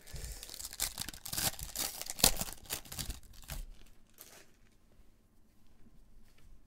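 The plastic foil wrapper of a Donruss trading-card pack is crinkled and torn open by gloved hands, with a sharp crack a little over two seconds in. After about three and a half seconds it gives way to faint ticks as the stack of cards is handled.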